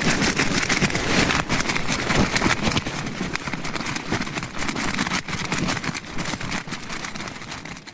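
Hilleberg Anaris tent fabric flapping and snapping hard in extremely strong wind, a rapid, irregular run of slaps over the rush of the gusts. It eases and fades toward the end.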